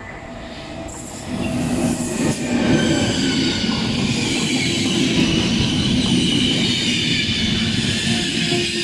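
Intercity passenger train running past close by on the platform track. The rush of the locomotive and coaches swells loud about a second in, with high steady squealing from the wheels running over it.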